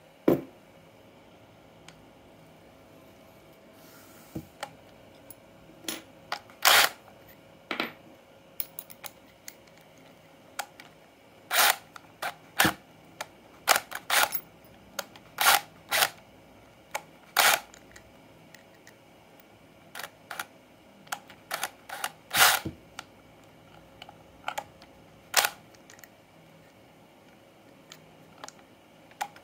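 Irregular sharp clicks and knocks of hand work with small parts and tools: a metal rod pushed into a plastic fan hub, and a cordless drill handled, its keyless chuck twisted to grip a bit. The drill is not run.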